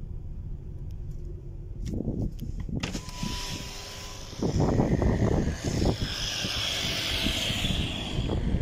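A car driving, with a steady low road rumble; about three seconds in, wind noise rushes in and buffets the microphone, growing louder.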